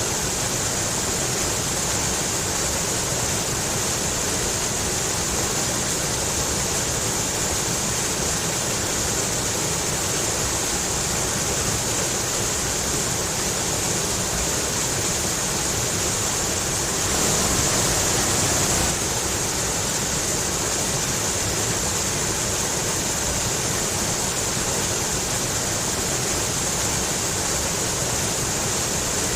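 Stream water rushing and splashing over rocks in a steady rush, briefly a little louder for about two seconds past the middle.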